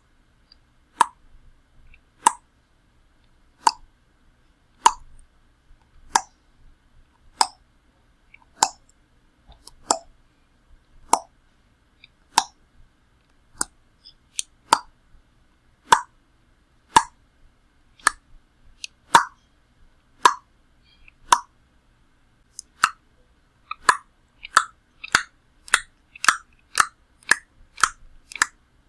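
A person clicking their tongue: single sharp wet clicks about once a second, speeding up to quicker clicks near the end.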